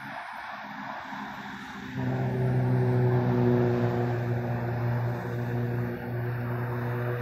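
Train horn sounding one long steady blast that starts abruptly about two seconds in, a low chord of tones, from an electric passenger train approaching on the main line. Before the horn, only a faint steady hiss.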